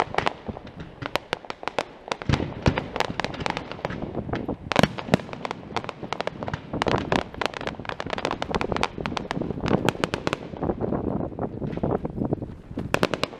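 Fireworks display: a dense, rapid run of cracks and pops from bursting shells, thinning out after about ten seconds.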